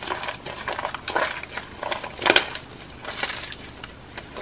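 Soft, runny slime being squeezed and pulled apart by hand, making irregular squelching and crackling.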